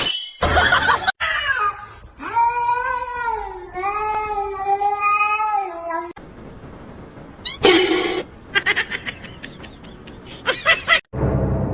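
A domestic cat giving two long, drawn-out meows one after the other, a couple of seconds in, their pitch bending up and down. Short clicks and clatters come before and after them.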